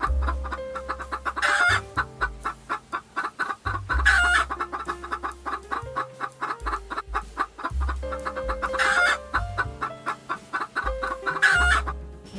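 Chickens clucking in short calls over background music with a steady beat and bass line.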